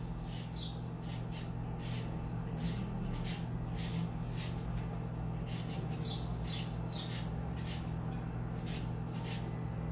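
A carrot being grated on a hand grater: rhythmic scraping strokes, about two a second, over a steady low hum.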